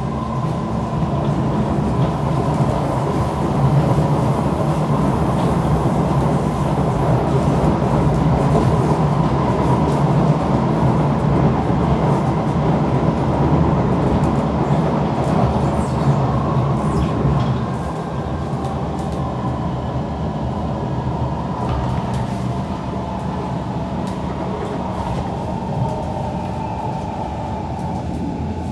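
Kawasaki C151 metro train with permanent-magnet synchronous motor propulsion running between stations, heard from inside the carriage: steady running rumble with a held tone from the drive. The level drops a little about two-thirds of the way through.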